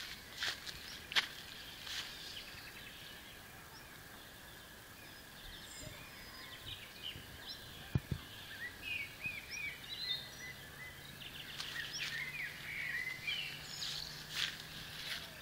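Small birds chirping in short, quick calls, clustered in the second half, over faint background noise. A few soft knocks sound in the first two seconds and one sharp click comes about eight seconds in.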